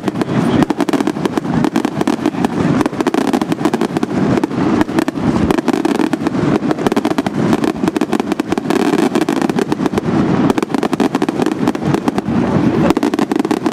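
Fireworks display: a dense, unbroken barrage of rapid bangs and crackles, many reports a second.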